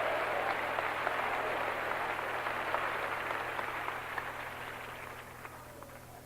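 Congregation applauding, a dense patter of many hands that dies away over the last two seconds or so.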